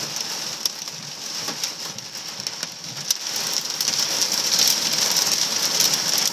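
Hail and heavy rain pelting a vehicle's roof and windshield, heard from inside the vehicle. A dense hiss of rain is dotted with many sharp ticks of stones striking, and it grows louder about halfway through.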